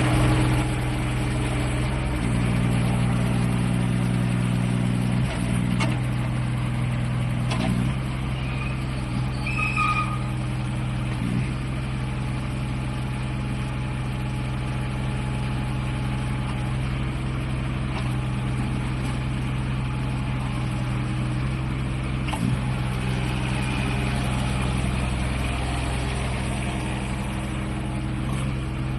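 Mini excavator's diesel engine running steadily through a test run, its note shifting several times as the machine is worked, with a few metallic clanks and brief squeaks.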